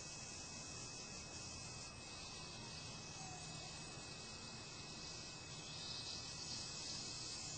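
Steady hiss with a thin, constant high-pitched whine under it: the recording's own background noise, with no distinct event.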